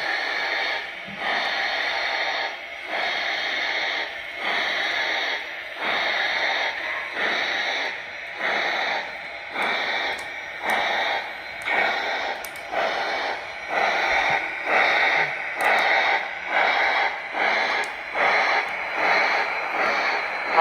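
Lionel Vision Line GS-4 model steam locomotive's onboard sound system playing steam exhaust chuffs, about one a second and quickening towards the end.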